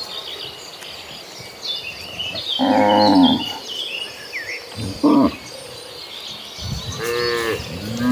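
Cattle mooing: a long low moo, a short call a couple of seconds later, and another long moo starting near the end. High chirping runs underneath.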